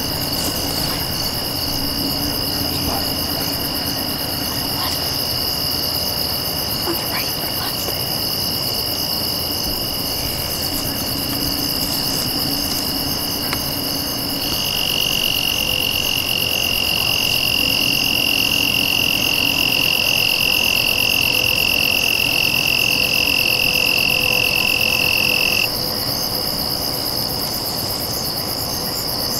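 Crickets and other insects trilling steadily in a high-pitched chorus. About halfway through, one nearby insect's trill grows louder, then cuts off suddenly a few seconds before the end.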